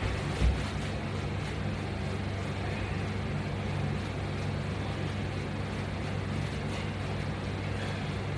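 Steady low hum with a soft thump about half a second in.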